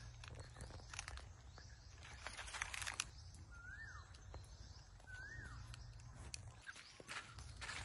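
Footsteps crunching and rustling through dry fallen leaves on a forest floor. Midway a bird gives two identical short whistled calls, each rising then falling, about a second and a half apart.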